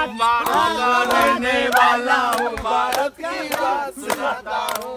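Several men's voices raised together, overlapping, with one held note under the first three seconds.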